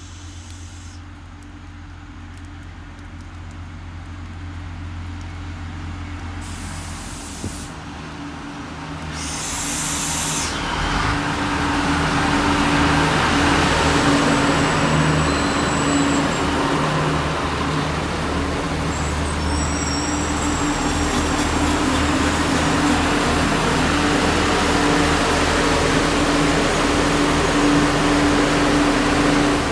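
Irish Rail diesel railcars: first a 29000-class unit approaching with a low engine hum, then from about ten seconds in a 22000-class Intercity Railcar running past close by, its engines and wheels loud and steady, with faint high wheel squeal.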